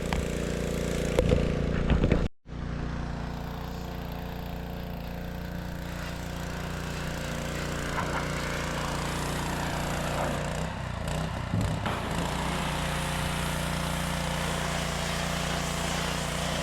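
Small petrol engine running steadily at an even speed, with a brief cut-out about two and a half seconds in.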